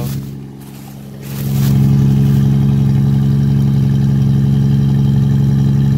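1992 Jeep Cherokee XJ exhaust at the tailpipe, running steadily with no catalytic converter fitted. It grows much louder about a second and a half in. The even, steady running is what the Jeep is supposed to sound like.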